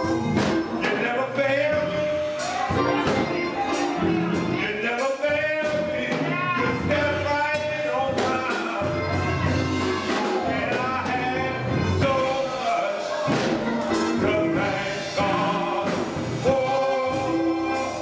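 Gospel choir singing with keyboard accompaniment from a Yamaha Motif XF7, with rhythmic percussive hits through the music.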